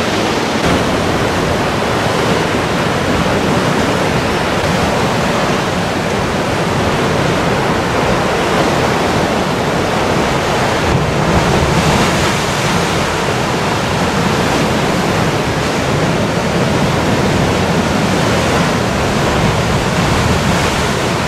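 Sea surf breaking and washing over shore rocks: a loud, steady rush of waves that swells a little about halfway through.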